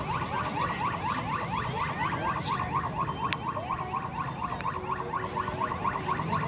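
Level-crossing warning alarm: an electronic tone repeating as a fast rising chirp, about four or five a second, sounding while the crossing barriers are down for an approaching train.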